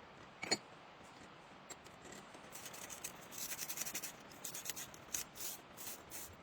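Wire cleaning brush scraping against copper pipe in quick repeated strokes, starting about two and a half seconds in, after a single click about half a second in.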